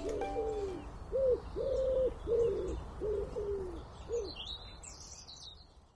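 Ukulele music ends about a second in, then a dove coos in a series of about six short, hooting notes, with faint small-bird chirps near the end as the sound fades out.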